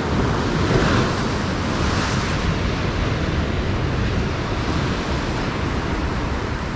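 Sea surf breaking against a rocky shore: a continuous rush of water, with a louder wave crash about a second in and another swell near two seconds.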